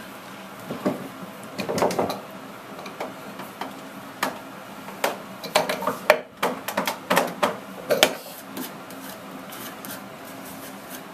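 Irregular knocks and clicks of wood on wood as a board is set into a woodworking bench vise and the vise handle is turned to clamp it tight.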